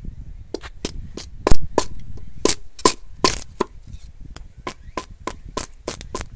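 A length of bamboo being split in half, giving a quick irregular run of sharp cracks and snaps, about three a second, as the split runs along the culm. The loudest crack comes about one and a half seconds in.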